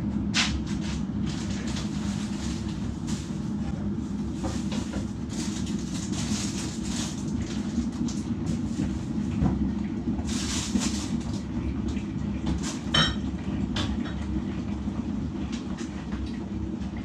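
Steady low hum from a kitchen appliance, with a few light knocks and rustles from someone moving about off to the side.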